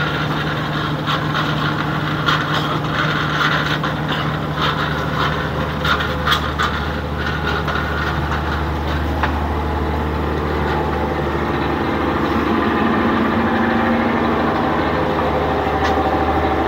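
Fishing boat's engine running steadily, with scattered knocks and clatter over the first several seconds. Its note rises slightly and grows a little louder in the second half.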